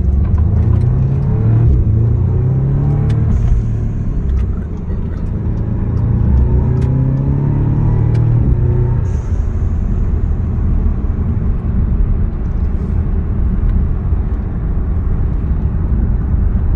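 Audi S3 8V's turbocharged 2.0 TFSI four-cylinder accelerating through two pulls, each ending as the throttle lifts with a short hiss from the diverter valve venting through an atmospheric spacer, about three and a half and nine seconds in. After that the engine runs steadily with road rumble.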